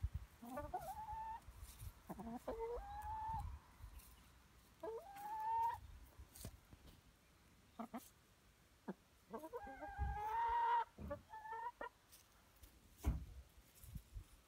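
Hens clucking in drawn-out calls that rise and then hold, about five of them, the longest and loudest about ten seconds in, with a few sharp taps in between.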